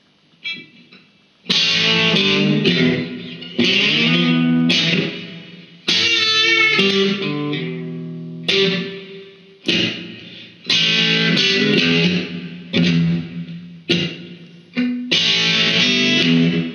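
Electric guitar playing an instrumental blues break between verses, in phrases of struck notes and chords. Some notes are held and bent, wavering in pitch, about halfway through.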